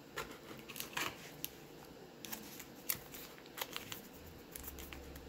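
A baseball card pack being pulled from its box and handled, the wrapper giving scattered crinkles and rustles.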